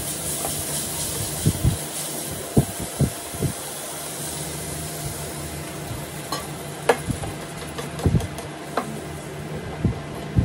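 Chicken and shredded ginger sizzling in a nonstick frying pan while a spatula stirs and scrapes through it, with irregular knocks of the spatula against the pan. The sizzle is loudest in the first couple of seconds.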